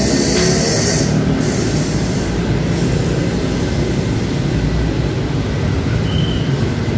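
Steady low rumble of road traffic with engine hum, heard through an open shop front; a high hiss drops away about a second in.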